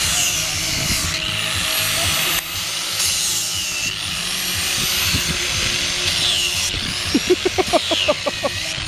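Corded electric angle grinder working the surface of a carved wooden sculpture: a high-pitched motor whine that sags in pitch several times as the disc is pressed into the wood, then climbs back as it is eased off.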